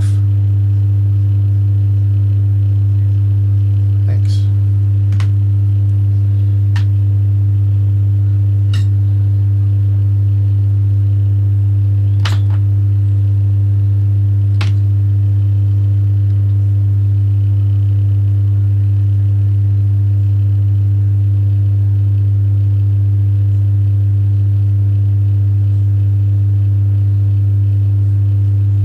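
A loud, steady low hum with a few faint overtones, unchanging throughout. Six light clicks or taps come between about four and fifteen seconds in.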